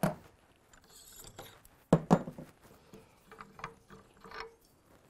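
Metal-on-metal handling of a Terminus Zeus rifle action being unscrewed by hand from a barrel held in a vise, just after being broken loose with an action wrench. A sharp clunk at the start and a louder one about two seconds in, then a run of light metallic clicks and ticks.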